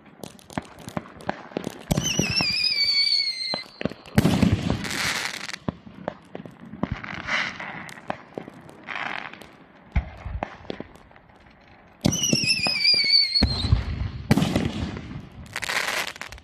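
Winda P8047 Black Site Armaments fireworks cake firing in two volleys about ten seconds apart. Each volley opens with a falling, wavering whistle and is followed by loud bursting breaks and a rush of noise, with scattered pops in between.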